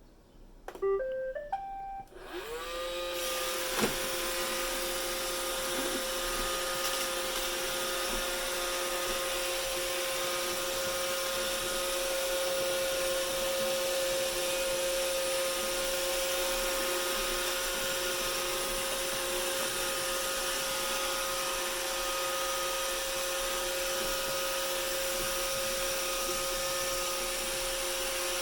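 Roomba robot vacuum starting a cleaning cycle: a short tune of stepped beeps, then its motors spin up with a rising whine and run steadily with a hum and hiss. There is one sharp click a few seconds in.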